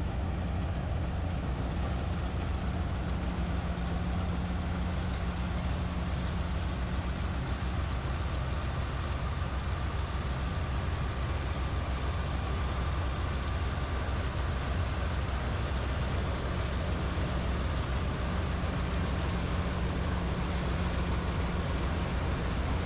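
PREET 4949 Maestro combine harvester's engine running steadily, a constant low drone with machinery noise over it.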